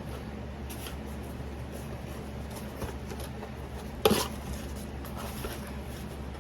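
Handling of a takeout food container and fork: faint rustling, then one sharp clatter about four seconds in, over a steady low hum.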